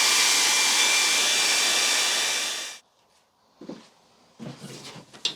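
Hair dryer blowing steadily on a freshly washed leather hiking boot to dry it: a loud hiss with a thin steady whine. It cuts off about three seconds in, leaving a few faint knocks.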